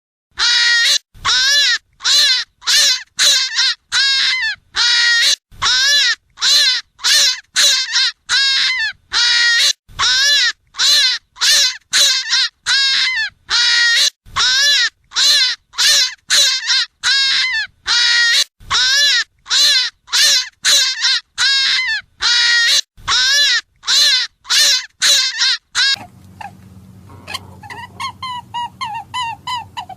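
Rabbit distress call of the kind used to lure predators: a loud, harsh scream repeated about twice a second, each cry rising and then falling in pitch. Near the end it gives way to a quieter, faster run of short high squeaks over a low hum.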